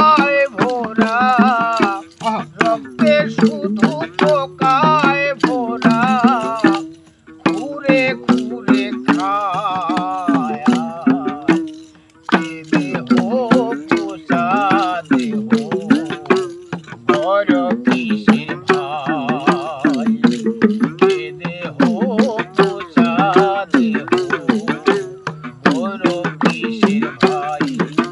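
Bengali folk song sung by a male voice with wavering, drawn-out notes, over hand percussion: a rattling beat of clicks from small drums and wooden clappers, with hand clapping.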